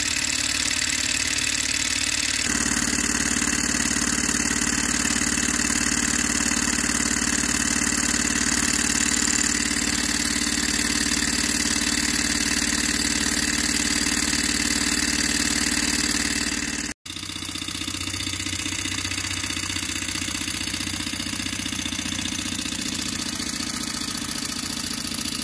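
Okmo Microcosm Rider-Ericsson hot-air pumping engine running steadily. The sound changes suddenly about 2.5 s in and cuts out for an instant about two-thirds of the way through.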